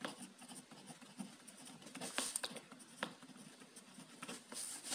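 Faint scratching of a pen on paper, writing words by hand in a series of short strokes.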